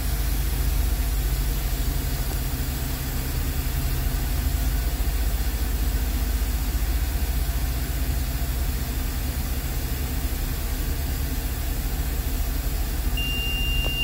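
CNG school bus engine idling steadily, heard from inside the cab. About a second before the end a steady high-pitched buzzer starts: the low-air warning, set off as the rear air tank is drained below its warning pressure.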